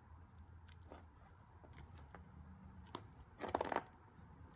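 Sticky slime being kneaded and stretched by hand: faint scattered clicks and pops, with one louder, longer squelch about three and a half seconds in.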